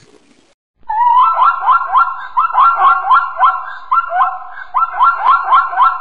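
A zebra's barking call: a rapid run of short, high-pitched barks, about four a second, starting about a second in.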